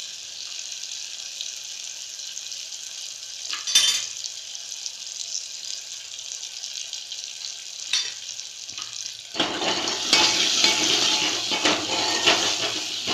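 Spiced oil tempering sizzling steadily in a metal pot as red chilli powder goes in, with two sharp knocks. About nine seconds in, a metal spoon starts stirring and scraping the pot, and the sizzling gets louder.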